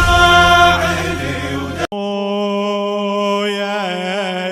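Male lament singer chanting a mournful Iraqi elegy over musical backing; about two seconds in the sound cuts out for an instant, and the voice then holds one long drawn-out note without the bass, its pitch wavering near the end.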